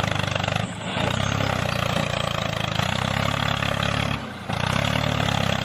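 Tractor engine running steadily with a fast, even chug. It drops away briefly twice, about a second in and just past four seconds in.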